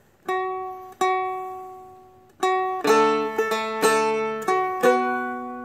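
Seagull Merlin M4, a four-string fretted dulcimer, picked: one note struck twice about a second apart, each left to ring and fade, then a short run of melody notes over ringing lower drone strings.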